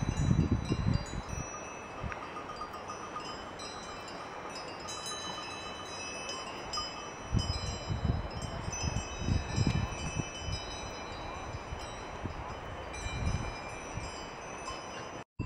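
Many goat bells tinkling and clanking irregularly, overlapping, from a herd of goats. Low wind rumble on the microphone comes and goes, strongest about a second in and again in the middle.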